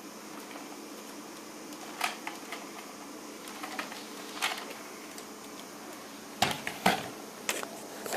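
Scattered sharp clicks and taps over a steady low hum and hiss, with a cluster of louder knocks near the end.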